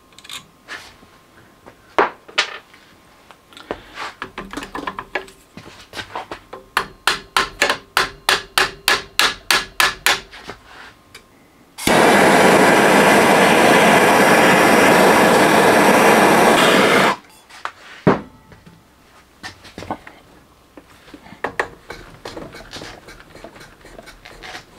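Hammer taps on steel, with a quick even run of about four strikes a second near the middle, then a handheld gas torch hissing steadily for about five seconds as its flame heats the AR-15 barrel at the front sight base to loosen it. A single sharp knock follows the torch.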